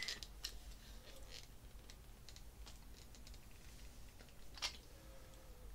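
Faint, irregular small metallic clicks and ticks of a wrench and a brass air fitting being handled and turned, with one sharper click about four and a half seconds in.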